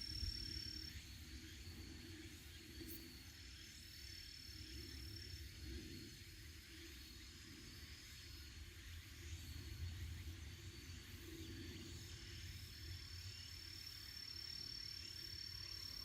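Faint outdoor ambience before the chime: an uneven low rumble and a thin high insect trill that comes and goes in stretches of a few seconds.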